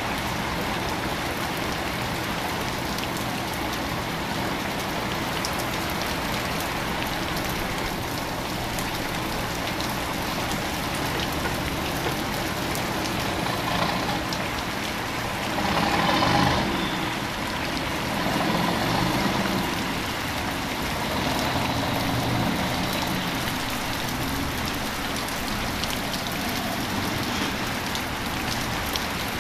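Steady rain falling on a wet street, with motor traffic passing through the water. About halfway through, a heavier vehicle swells up louder for a couple of seconds, and a few quieter passes follow.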